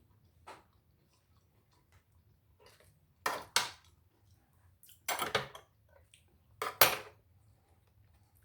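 Sharp clacks and cracks of utensils and crab shells being worked at on a plate, in three quick clusters about three, five and seven seconds in.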